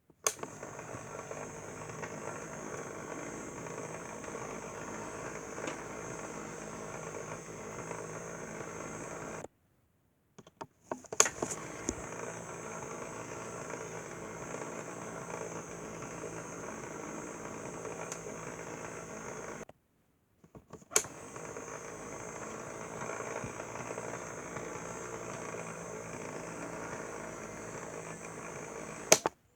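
Small electric motor of a rotating toy display turntable whirring steadily. Three long stretches are broken by two brief silences, each new stretch beginning with a sharp click.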